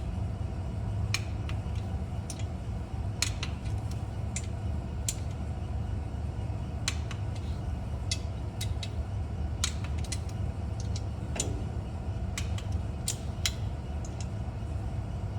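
Ratchet wrench clicking in short, uneven runs as exhaust header bolts are snugged down against a fresh silicone gasket bead, over a steady low hum.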